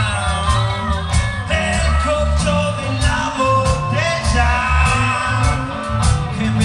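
A rock band playing live: electric guitars and drums with a steady beat about two strikes a second, and male voices singing over it.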